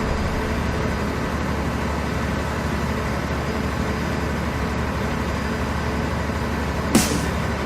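Hydraulic static pile driver running steadily, a low, even machine hum from its power unit, with a single sharp knock about seven seconds in.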